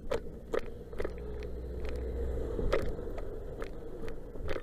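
Motor vehicle rumble with a steady low hum, broken by about half a dozen sharp knocks or rattles.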